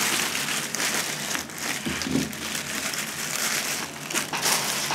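Clear plastic packaging bag crinkling and rustling unevenly as a computer speaker is pulled out of it and the bag is bunched up in the hand.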